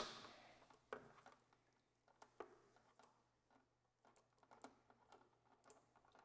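Near silence, with a few faint, scattered clicks of a hand-held 5 mm hex driver working the fuel-tank bolts.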